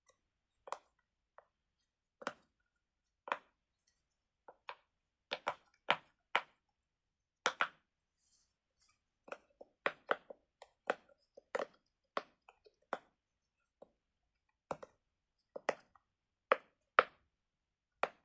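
Medium-sized silicone Pop It fidget toy having its bubbles pressed one after another: a string of short, soft pops at an uneven pace, about one every half second with short pauses. The pops are not that loud because the toy is soft to press.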